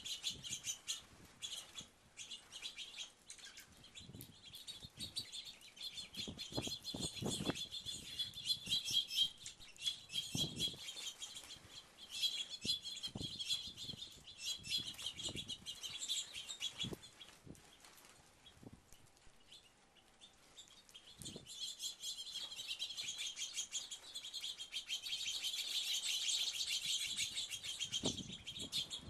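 A flock of small birds chirping continuously at a feeder, with wing flutters and soft thumps as birds land and take off. The chatter thins out about halfway through and swells again near the end.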